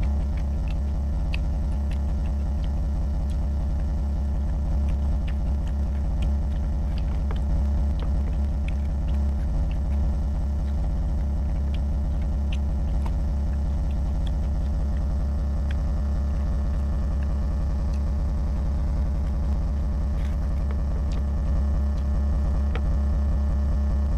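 A steady low hum, the loudest sound throughout, with scattered faint wet clicks and smacks of a man chewing rice and pork curry and mixing it by hand on his plate.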